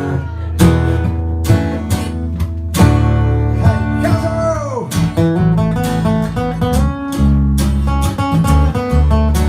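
Instrumental passage from a small band: strummed acoustic guitar chords over a bass guitar line, with one guitar note sliding down in pitch about four seconds in.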